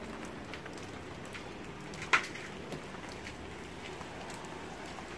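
Faint rustling and scattered small clicks of someone moving on foot through dry leaf litter and undergrowth, with one sharp snap about two seconds in.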